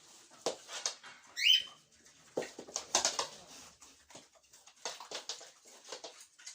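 Micropigs grunting and snuffling in short, irregular bursts, with one short high-pitched squeal about a second and a half in, the loudest sound.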